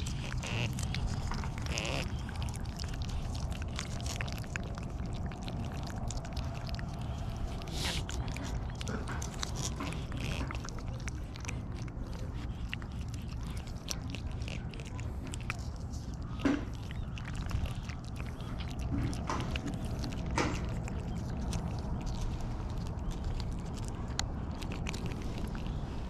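Cats licking and smacking at a lickable paste treat from a squeeze tube, a run of small wet clicks over a steady low rumble, with a couple of louder short knocks past the middle.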